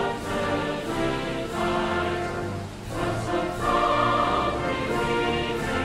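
Music with a choir singing sustained, layered notes.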